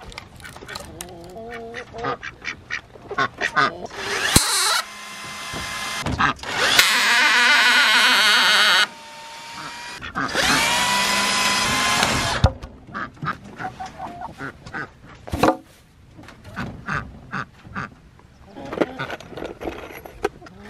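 Cordless drill driving screws into a wooden board, in three runs of about two seconds each. The motor whine rises in pitch on the last run. Between runs there are scattered clicks and knocks of handling.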